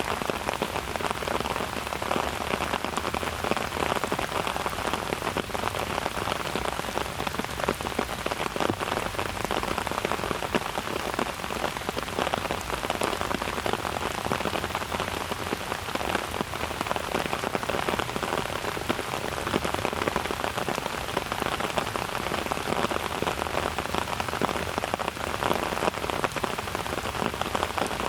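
Steady rain falling: a dense, even patter of many drops, with no change in strength.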